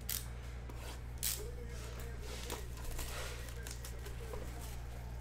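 Cellophane shrink wrap being torn off a trading-card box and crumpled in the hands: irregular crinkling with a couple of sharp crackles, over a steady low hum.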